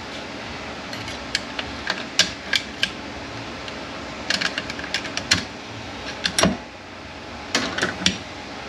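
Metal parts of a Mercedes 722.9 automatic transmission clicking and clinking as they are handled during teardown: a scattering of sharp clicks starting about a second in, over a steady fan hum.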